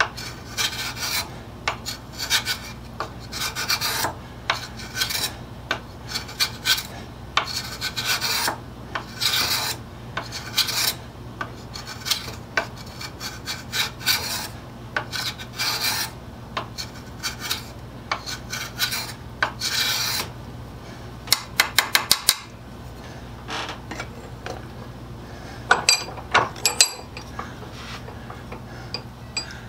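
Stanley No. 151 spokeshave taking shavings off oak end grain, held at an angle so the blade slices: a run of short rasping strokes, one every second or so. After the strokes stop there is a quick run of sharp clicks, then a few knocks near the end.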